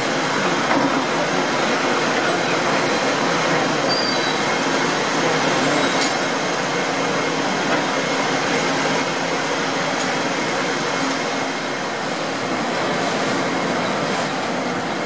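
Vintage belt-driven machine tools running: flat belts turning over spoked pulleys with shafting and gearing, a steady mechanical running noise that holds level throughout.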